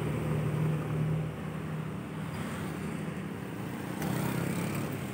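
A FAW dump truck's diesel engine running as the truck pulls away; its low hum fades after about a second into even road-traffic noise. The traffic noise swells again near the end as another vehicle comes closer.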